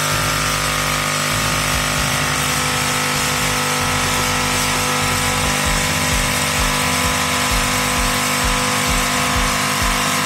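Lavazza A Modo Mio espresso machine's pump running steadily. It pushes water through the capsule-piercing piston's drive circuit, whose hose has been unhooked and drains into a glass for a leak test.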